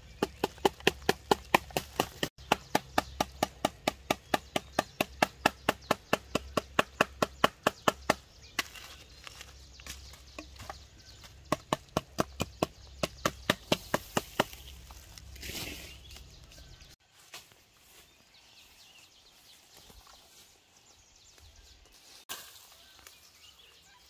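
Sharp, evenly spaced strikes at about three a second, in two runs of several seconds each with a short pause between, then stopping.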